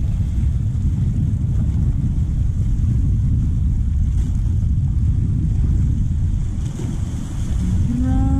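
Wind buffeting the camera microphone, a steady low rumble, mixed with sea waves washing over shoreline rocks.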